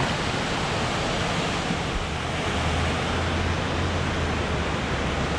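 Steady rush of water pouring over a dam spillway, an even, unbroken noise.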